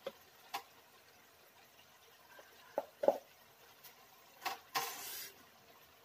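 A few scattered light clicks and taps, the loudest about three seconds in, followed near the end by a brief half-second hiss or rustle.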